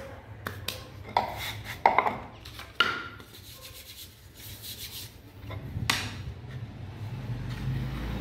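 Knocks and scrapes of a metal sand-casting flask and small tools being handled: a few sharp knocks in the first three seconds and another near six seconds. A low rumble builds in the last few seconds.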